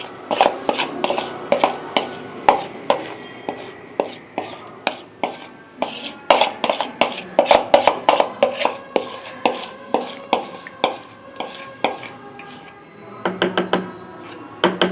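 A spoon repeatedly knocking and scraping against a bowl and cup while batter is spooned into the cup: sharp clinks and taps a few times a second, some with a short ring.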